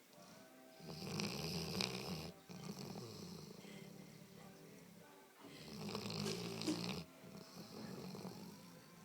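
Dog snoring: two long rattling snores about four seconds apart, with a quieter breath between them.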